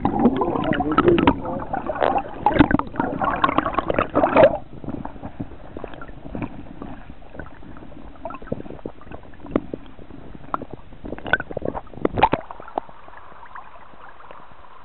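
Shallow water sloshing and gurgling against a camera held just under the surface: loud and churning for the first four and a half seconds, then quieter, with scattered small clicks and splashes.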